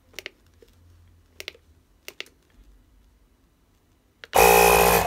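Several sharp clicks of buttons being pressed on the red control unit of a power-flushing machine. Near the end the machine starts with a sudden loud burst of running that lasts under a second.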